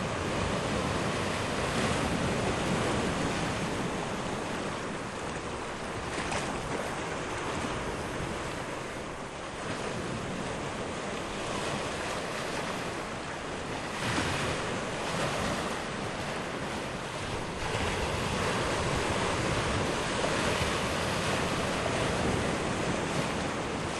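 Sea waves washing onto the shore at low tide, a steady surf wash that swells and eases, with wind buffeting the microphone.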